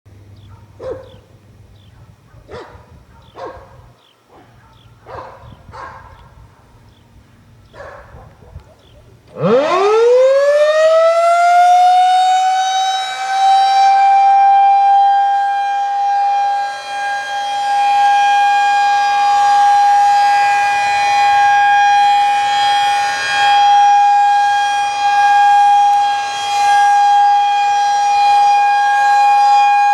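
Federal Signal 2001-SRNB electromechanical rotating siren starting up about nine seconds in: a rising whine that climbs in about two seconds to a steady, very high-pitched tone, then holds it, really loud, swelling and dipping slightly every few seconds as the head turns. Before it starts there are only a few brief sharp sounds.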